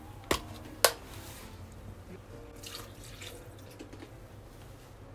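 Milk poured from a cup into a blender jar of whole strawberries, a soft liquid pour and splash. Near the start there are two sharp clicks about half a second apart.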